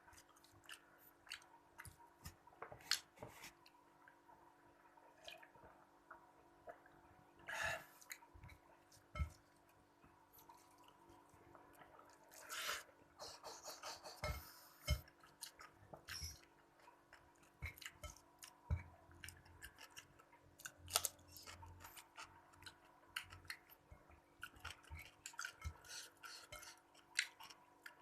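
A person eating by hand: chewing and mouth sounds with scattered small clicks and taps on a plate, and a few short crunchy bursts, over a faint steady hum.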